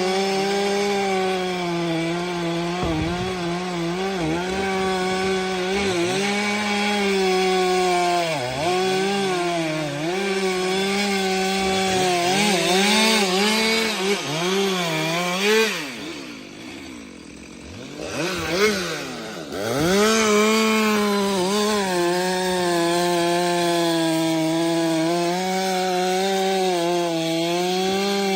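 Stihl MS 462 C-M two-stroke chainsaw at full throttle cutting firewood, its pitch dipping again and again as the chain bogs into the wood. A little past halfway it drops to idle for a few seconds, then revs back up and cuts on.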